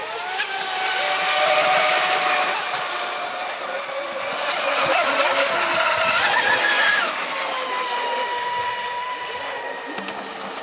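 Electric RC speedboats running at speed: the high whine of their brushless motors rises and falls in pitch over the rush of spray from the hulls, swelling louder twice as they pass.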